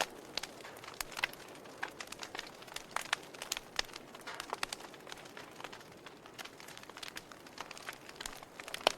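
Wood fire burning in a fireplace, crackling with irregular sharp pops and snaps over a soft steady hiss of flame.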